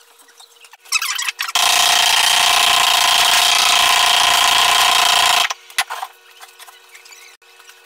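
Electric sander running steadily for about four seconds, starting and stopping abruptly, held against a freshly poured concrete countertop form to vibrate air bubbles out of the wet concrete. A brief scrape comes just before it starts.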